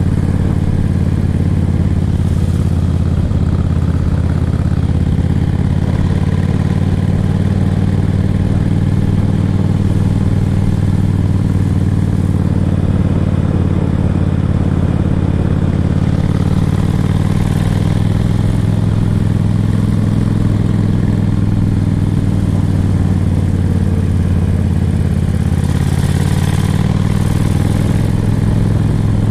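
Yamaha XVS1300CU Stryker's V-twin engine running steadily while cruising, with wind noise from the ride. The engine note rises a little about two-thirds of the way through, then settles.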